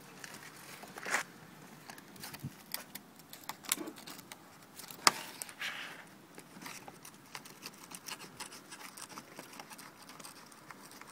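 Screwdriver working a screw on the Smart Fortwo 450 cabrio soft-top's rear section: scattered small metallic clicks and scrapes, with fabric handling. One sharp click about five seconds in is followed by a brief scrape.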